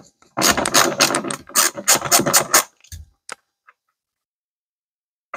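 Hand ratchet clicking fast for about two seconds as a seat-bracket bolt is worked off, then a few single clicks.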